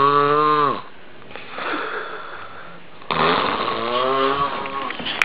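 A man snoring loudly in long, rasping snores. One snore falls in pitch and stops just under a second in, a softer breath follows, and another loud snore starts about three seconds in.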